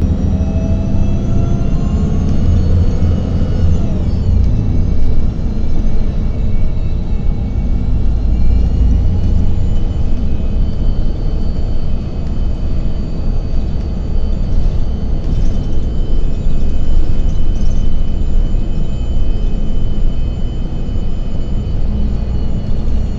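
New Flyer city bus accelerating and then cruising, heard from inside the bus: a heavy low rumble under a drivetrain whine that rises for about four seconds, drops as the transmission shifts up, then holds steady.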